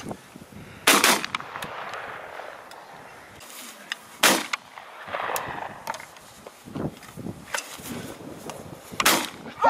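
Shotguns firing at thrown clay targets: three loud single shots, about a second in, about four seconds in and near the end, with a few fainter knocks between.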